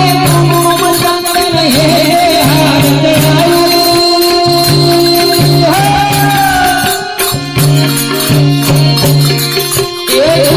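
Devotional aarti music: a singing voice carrying a gliding melody over held harmonium notes, with steady rhythmic jingling percussion.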